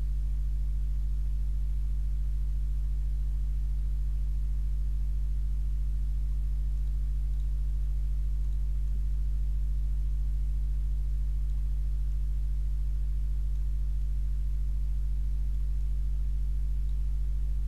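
Steady low electrical hum with a stack of even overtones, unchanging throughout: mains hum picked up by the recording.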